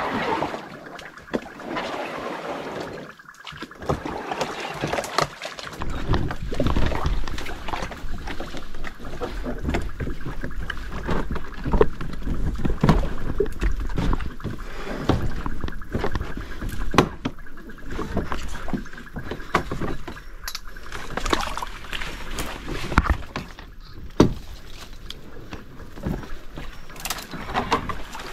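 Kayak on the water: paddle strokes knocking and splashing, with a low wind rumble on the microphone from about six seconds in.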